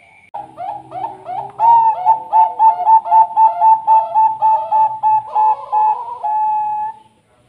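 Caged zebra dove (perkutut, Bangkok line) singing its cooing song: a quick, even run of about twenty short ringing notes, ending on one longer held note.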